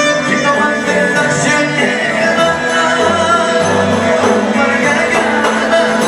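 Live traditional dance music from a wedding band: a violin carries the melody over keyboard chords and bass, with a jingled frame drum (tambourine) beating time.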